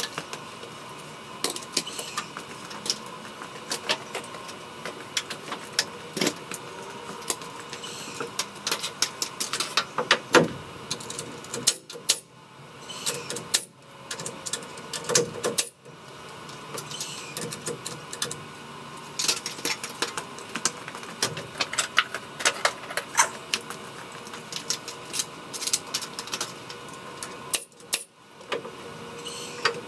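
Irregular clicks, rattles and knocks of carpentry on a wooden roof-truss frame, with a few louder knocks about a third and halfway through.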